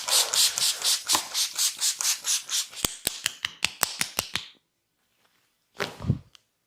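Hands rubbing and striking skin in a fast massage rhythm, about four strokes a second. After about three seconds this gives way to a quick run of about eight sharp snaps. A single low thump follows near the end.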